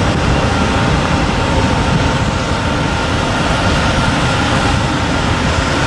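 A Boeing 757-200's twin Rolls-Royce RB211 jet engines at climb power as it climbs away after takeoff: a loud, steady, deep rumbling roar.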